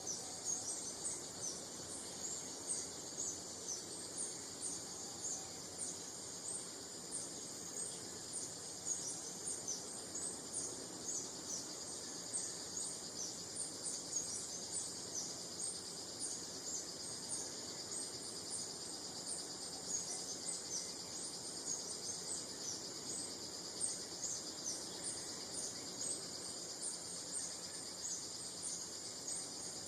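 Outdoor nature ambience: a steady high-pitched insect drone with many short, high chirps repeating throughout, over a soft low background hiss.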